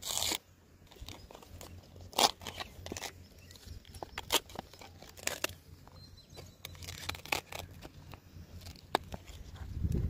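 A tapping knife working at the flower stalks and dry fronds in the crown of a palmyra palm. A short rasp, then scattered sharp cracks, snaps and scrapes.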